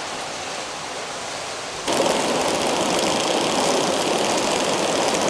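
Steady rushing of river water. It steps up abruptly louder and brighter about two seconds in.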